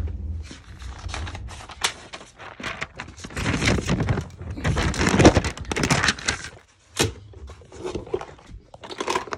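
Footsteps going down into a basement, with irregular knocks, thumps and rustling handling noise on the recording device. The rustling is densest in the middle, with a brief lull and a sharp click a little before the end.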